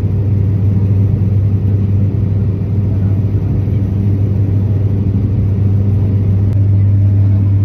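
Aircraft engines heard inside the airliner cabin: a loud, steady low drone that grows louder about six and a half seconds in.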